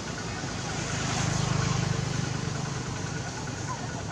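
Low engine hum of a passing motor vehicle, swelling about a second in and then fading, over a steady hiss.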